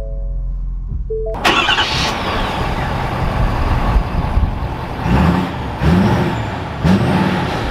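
A few held musical notes, then about a second and a half in the Ford F-350's 6.7-litre Power Stroke turbo-diesel V8 comes on suddenly and runs. In the second half it is revved about four times, each rev rising and falling in pitch.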